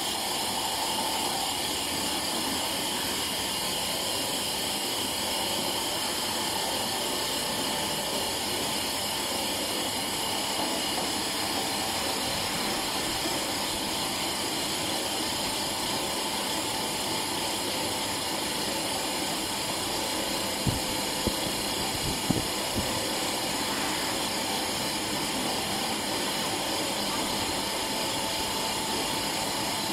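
Electric-motor-driven pet and fish feed extruder running steadily, producing feed: an even machine noise with a hum and several constant high tones. A few short knocks come about two-thirds of the way in.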